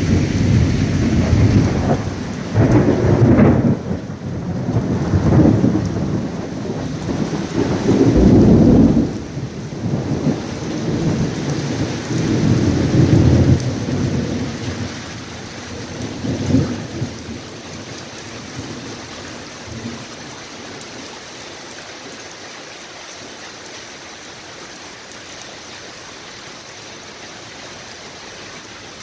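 Long rolling thunder, rumbling in several loud swells over about the first seventeen seconds and then dying away, leaving the steady hiss of rain.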